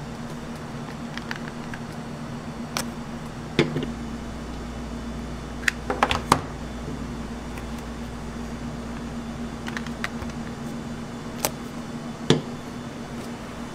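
Scattered light clicks and taps from a wax-seal stamp and gift boxes being handled, over a steady low hum.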